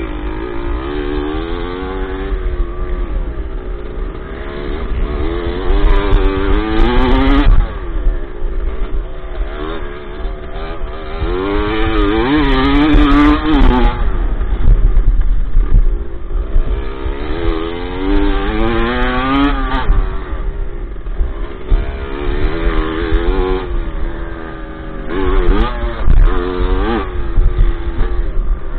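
Dirt bike engine heard from the rider's own machine, climbing in pitch under throttle and dropping back several times as it rides a dirt track, over a steady low rumble.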